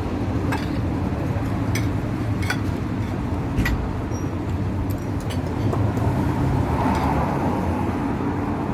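Restaurant dining-room noise: a steady low rumble of the room, with light clinks of cutlery against plates and dishes every half second to a second.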